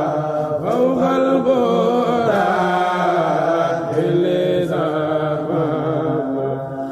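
Mouride khassida chanted unaccompanied by male voices, in long, drawn-out melodic phrases with brief breaks between them.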